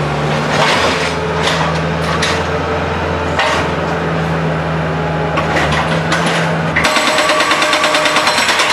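Concrete demolition machinery: an engine runs steadily under repeated crashes and scrapes of concrete being broken, and near the end a fast, even mechanical hammering starts, as from a concrete breaker.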